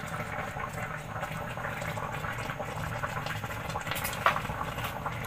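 Pot of rice boiling on the stove: a steady bubbling hiss, with one sharp click about four seconds in.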